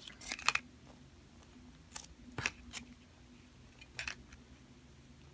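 Faint handling sounds of toy packaging: a short rustle of a paper sleeve and clear plastic wrapper being pulled off a foam squishy ice cream, then a few separate light clicks and crinkles as the wrapper is handled.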